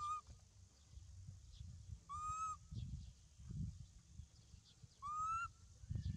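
Three short, clear whistle-like animal calls, evenly spaced about two and a half seconds apart, each rising slightly and then holding level, over low rustling and bumping.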